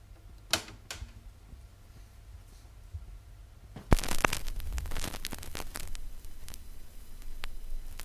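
Record-player tonearm being moved into place with two sharp clicks about half a second in; about four seconds in the stylus drops onto the spinning vinyl record with a thump, followed by steady surface crackle and pops from the lead-in groove.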